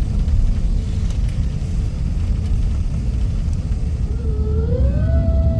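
Jet airliner cabin noise inside an Airbus A350: a loud, steady, deep rumble. About four seconds in, a tone of background music glides upward and then holds steady.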